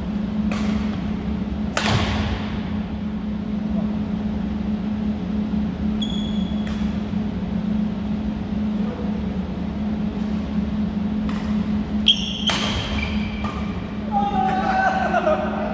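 Badminton rally: several sharp smacks of rackets striking a shuttlecock a few seconds apart, with a couple of short high squeaks from shoes on the court floor, over a steady low hum. A voice calls out near the end.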